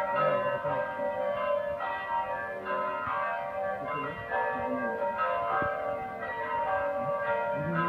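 Urban M electronic church bell imitating the toll of real church bells, striking about twice a second with each stroke ringing on into the next.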